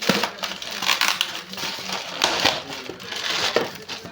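Fan packaging handled during unboxing: irregular rustling and crackling of wrapping and box material.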